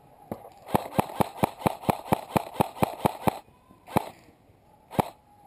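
Airsoft rifle firing a fast string of about a dozen single shots, about five a second, then two more single shots a second apart.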